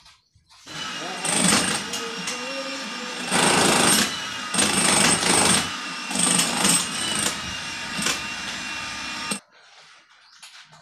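Power drill boring into a concrete column, its motor running steadily with several louder stretches as it is pushed in. It starts about a second in and stops suddenly about nine seconds in.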